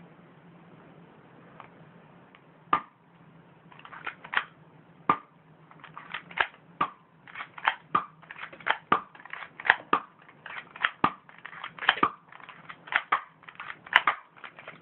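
Airsoft gun firing at a pen: a long run of sharp cracks, irregular but about two to three a second, starting about three seconds in.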